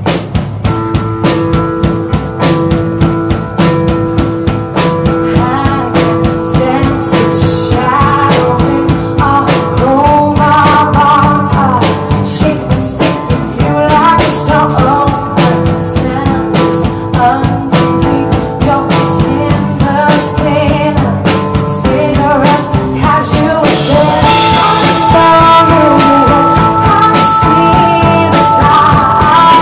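A woman singing live into a microphone, backed by a band with a steady drum beat and sustained chords.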